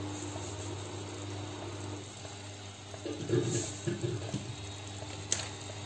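Lamb offal simmering in dark soy sauce and its own juices in a cast-iron pot, a steady sizzling hiss, with a few soft knocks about three seconds in.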